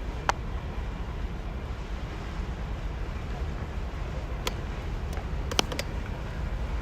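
Steady low rumble of wind on the microphone outdoors. A sharp click comes about a third of a second in, and a few more follow between about four and a half and six seconds in.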